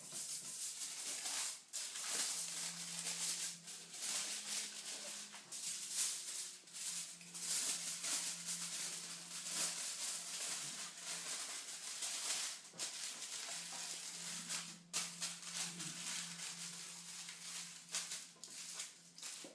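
Aluminium foil being handled, crinkled and folded around a chicken breast: continuous irregular crackling and rustling with sharp crinkles throughout.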